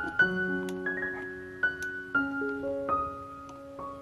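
Background piano music: a gentle melody of single held notes, each struck and left to ring.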